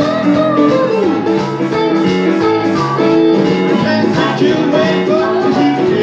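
Live blues band playing: amplified harmonica, electric guitar and electric keyboard together in a steady instrumental groove.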